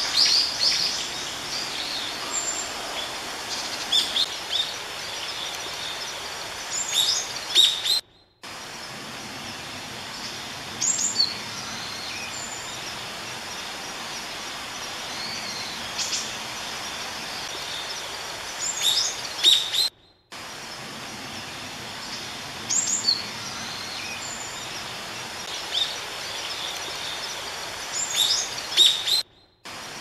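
Small songbirds chirping and calling over the steady rush of a clear mountain stream. The sound cuts out briefly three times.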